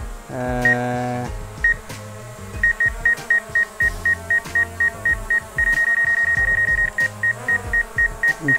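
High obstacle-warning beeps from the DJI Fly app while the DJI Mavic Air 2 drone hovers with its propellers humming. The beeps come sparsely at first, then about four a second, and run together into one continuous tone for about a second midway before breaking up again: the drone's obstacle sensors are detecting nearby objects.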